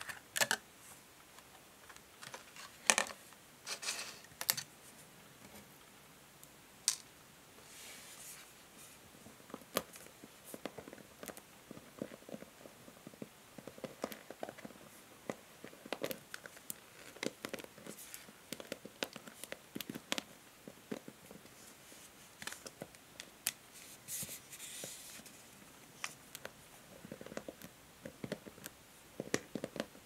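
Long fingernails tapping, flicking and scratching the ball-tipped plastic pins of a new paddle hairbrush, in scattered light clicks and scratches. The brush's card and plastic packaging rustles and crinkles in the first few seconds.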